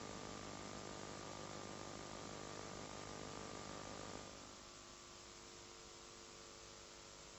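Steady electrical mains hum with a layer of hiss. It drops slightly in level about four seconds in.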